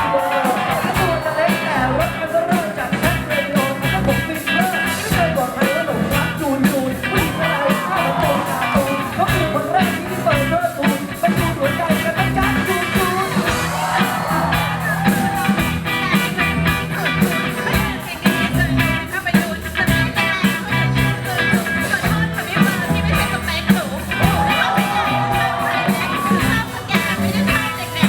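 Loud band music with a steady beat and a singing voice.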